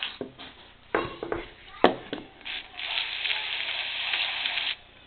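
Aerosol spray cleaner hissing into a moped carburetor: one short burst, then a steady spray about two seconds long that cuts off sharply. Before that come a few light clicks and knocks of the carburetor parts being handled.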